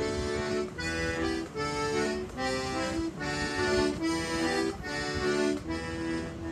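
Button accordion playing a lively tune, a melody of short held notes over chords, with brief dips in the sound about once a second.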